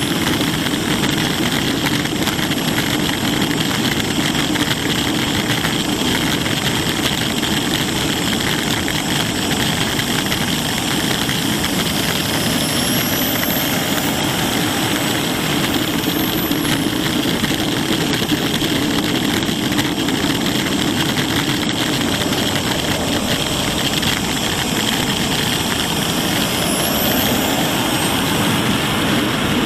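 Model turbine jet engine running steadily, heard from on board the model: an even, close-up hiss and whine with faint high whistles gliding up and down now and then.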